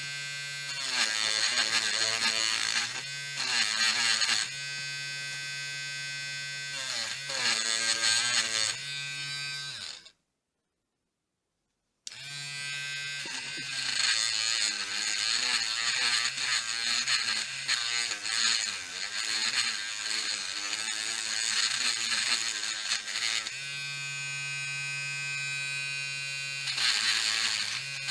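Small electric grinder fitted with a wire brush running at a steady whine, with louder scratchy stretches as the brush scrubs oxide off a metal door-lock part. The sound cuts to silence for about two seconds near the middle, then the grinder runs on.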